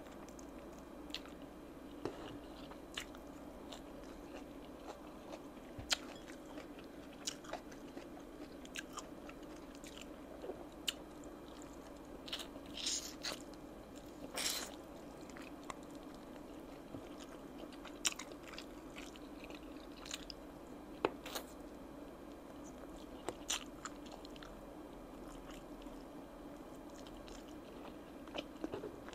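Close-up eating sounds of oven-roasted chicken wings being bitten and chewed: scattered crisp crunches and wet mouth clicks, with a louder run of crunching about halfway through. A steady low hum sits underneath.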